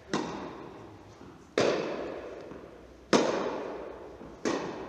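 Tennis groundstroke rally: four sharp racket-on-ball hits about a second and a half apart, each ringing out in the echo of an indoor tennis hall.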